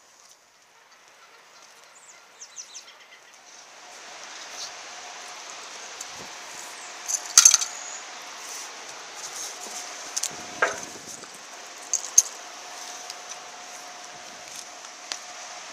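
Rushing water of the river below a hydroelectric dam: a steady noise that swells up over the first four seconds and then holds, with a faint steady hum underneath. Sharp clinks and knocks are scattered over it, the loudest pair about seven and a half seconds in, more around ten and twelve seconds.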